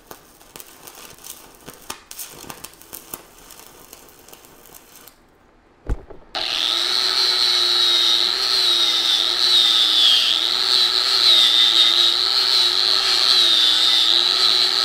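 Aluminum stick-welding arc from an E4043 electrode crackling faintly for the first five seconds. After a brief silence and a click, an angle grinder with a wire wheel starts and runs steadily and loudly, brushing the aluminum weld bead clean, its pitch wavering slightly under load.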